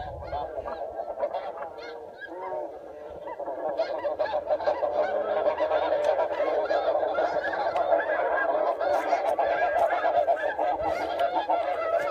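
A dense chorus of many geese calling at once, short overlapping honks and yelps, thin at first and swelling louder about four seconds in.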